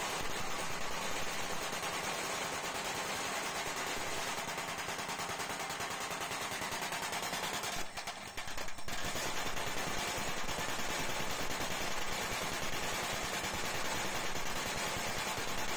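Small power press rapidly punching a decorative dashed pattern into the rim of a brass plate as the plate is turned under it, a fast run of metal-on-metal strokes. The strokes break off for under a second about halfway through, then carry on.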